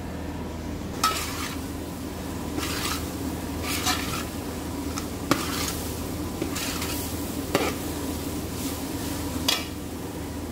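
Long steel spoon stirring and scraping tender jackfruit and grated-coconut stir-fry (idichakka thoran) in a large aluminium pot. There are irregular scrapes of the spoon against the pot, about one every second, over a steady low hum.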